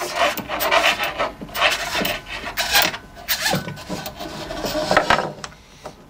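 Foredom flexible shaft being slid back into its outer sheath: irregular rubbing and scraping strokes as the shaft and sheath are worked by hand, dying away near the end.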